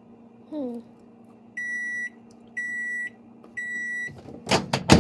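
Hamilton Beach microwave oven beeping three times, each beep a half-second high tone, about a second apart. Near the end come several loud, sharp knocks.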